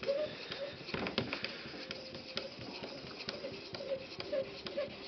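Edge Pro Apex 600-grit aluminum oxide water stone being stroked along the edge of a ZDP-189 steel knife blade: repeated short scrapes, about two a second, with light clicks between them, while a burr is raised on the dull edge.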